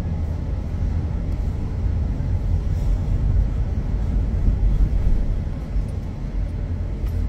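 Steady low rumble of a car driving slowly, heard from inside the cabin: engine and tyre noise.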